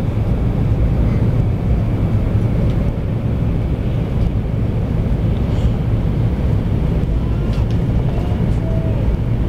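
Steady low rumble of a train running at speed, heard from inside the passenger car.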